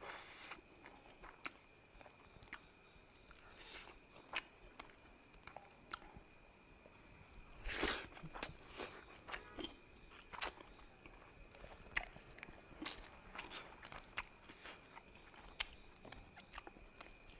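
A person chewing and biting food, with irregular small crunches and mouth clicks. A louder burst of crunching comes about eight seconds in.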